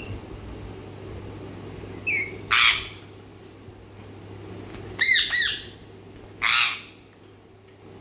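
Parrot squawking in separate calls: a short call about two seconds in, then a harsh screech, a quick run of rising-and-falling chirps around the middle, and another harsh screech near the end. A steady low hum runs underneath.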